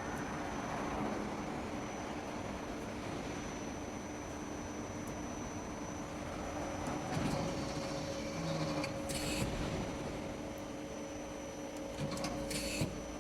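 Mori Seiki SL-3A CNC lathe running on a test run: a steady machine hum with a thin high whine. Two short hisses come about nine and twelve and a half seconds in.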